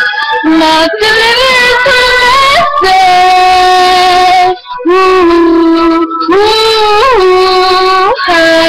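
A woman singing without words, holding a run of long notes of one to two seconds each and sliding up into some of them, with short breaks for breath between.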